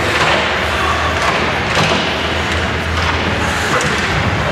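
Youth ice hockey play: skates scraping on the ice, with thuds and slams of sticks, puck and players against the boards, and faint voices.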